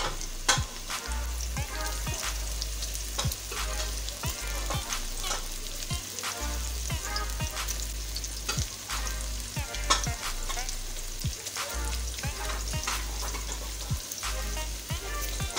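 Sliced onions sizzling and crackling in hot oil in a kadai, stirred with a spatula.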